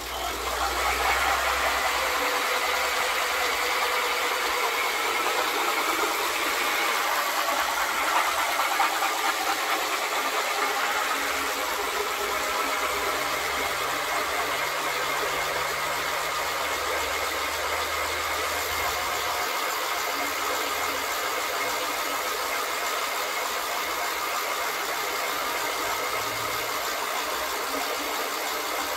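A 19-inch ratchet kite-line reel spinning freely after a hard hand spin, its ratchet rattling so fast that it blurs into a steady mechanical whirring buzz. It starts loud just as the reel is spun and eases a little after about ten seconds as the reel keeps turning.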